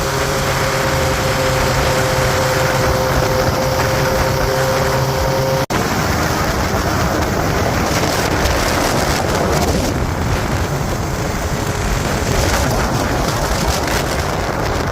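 Motorcycle cruising at steady speed: a steady engine drone under heavy wind rush on the microphone. After an abrupt break about six seconds in, the wind noise covers the engine.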